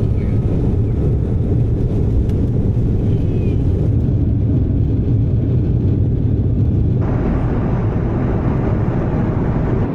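Steady low drone of an airliner's cabin in flight, with a hiss joining about seven seconds in.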